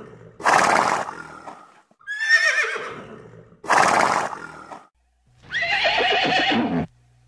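Horse neighing repeatedly: quavering whinnies with short breathy rushes between them. The last call, near the end, is longer, lower and falling.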